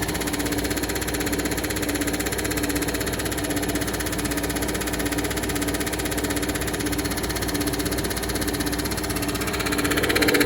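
Air conditioner running steadily: an even motor hum with a steady tone over the rush of air from its fan. The unit is working properly, fully charged and blowing cold. Near the end the sound grows a little louder and brighter.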